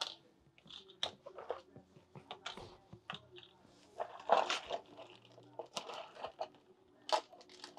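Irregular clicks, knocks and rattles of barber tools and plastic clipper guards being rummaged through in an aluminium carrying case, with a denser burst of handling noise about four seconds in. A clear plastic bag is handled near the end.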